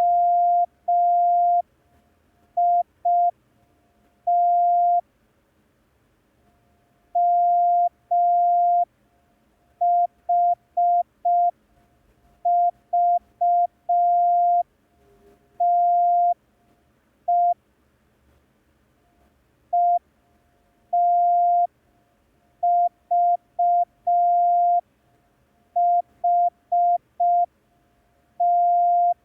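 Morse code practice tone: a single steady beep keyed on and off into dots and dashes, sending random letters from the set E, I, S, H, T, M, O, A, U for copying practice. The letters come slowly, with long gaps between them.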